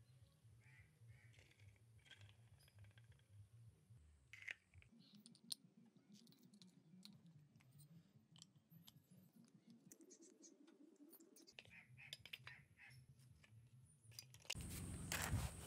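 Faint, scattered clicks and taps of a steel spanner on a nut and of plastic training-wheel parts being handled while the wheel is bolted to its bracket. A louder, steady hiss comes in near the end.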